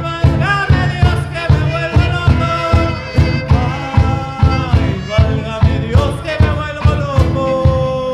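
Son jarocho ensemble playing an instrumental passage: a violin carries a sliding melody over strummed strings, with a steady low beat about two to three times a second.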